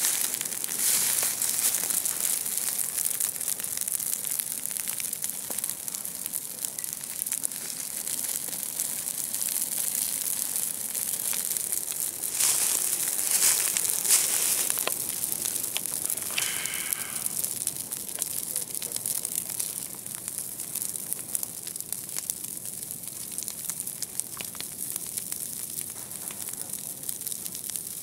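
Low ground fire crackling as it burns through dry forest litter and brush during a burnout, a dense run of fine pops and crackles that swells louder for a few seconds about halfway through.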